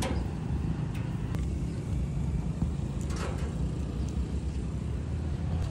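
A steady low rumble of street noise, with a sharp clack right at the start and two more about three seconds in.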